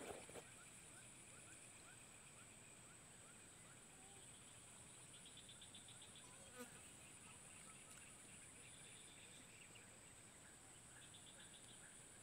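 Faint, steady high-pitched insect chorus, with a few short trilling chirps about five, nine and eleven seconds in; otherwise near silence.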